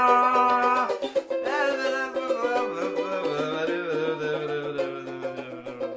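Ukulele strumming under a man's singing voice at the end of a song: he holds a long note on "hear", then about a second in breaks into a wavering, sliding closing phrase over the last strummed chords.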